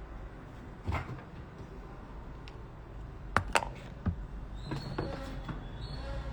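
A handful of sharp clicks and knocks of small hard tools being handled and set down on a workbench, the loudest a quick pair about halfway through, over a steady low hum.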